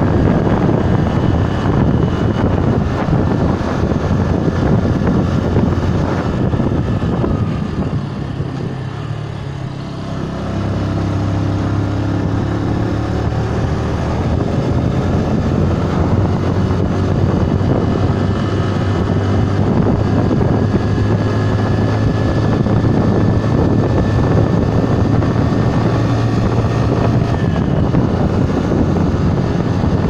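Bajaj Boxer BM 125 X single-cylinder four-stroke motorcycle engine running under way, mixed with wind rush on the microphone. The engine eases off about eight seconds in and picks up about two seconds later, then holds a steady note.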